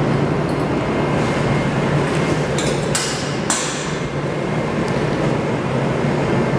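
Steady ventilation noise with a low hum, and a few brief scraping clicks about three seconds in from steel dissecting instruments cutting a tissue fragment on a plastic cutting board.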